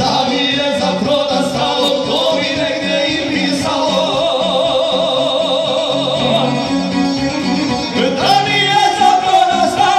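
Bosnian izvorna folk song performed live: male voices singing through microphones to the accompaniment of a plucked šargija and a violin. A long wavering note is held through the middle, and a new, louder phrase begins about eight seconds in.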